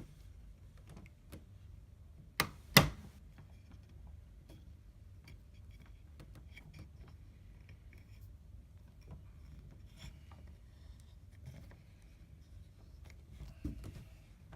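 A1 Quick Pull tool being twisted a little at a time on a Kwikset knob lock: faint metallic ticks and rubbing, with two sharp cracks about two and a half seconds in, the second the loudest, and a smaller clatter near the end.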